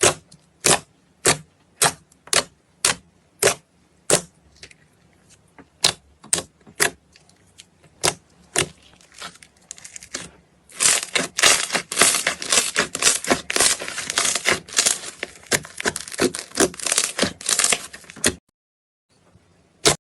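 Slime being pressed and worked by hand, giving sharp clicking pops a little under two a second. About halfway through it changes to a dense run of crackling pops lasting about seven seconds, which stops suddenly, with one last click near the end.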